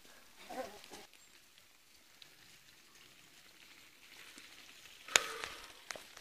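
Runners' footsteps and pushed mountain bikes rustling along a dirt trail. A short vocal sound comes about half a second in, and a sharp click about five seconds in is the loudest sound, followed by a few smaller clicks.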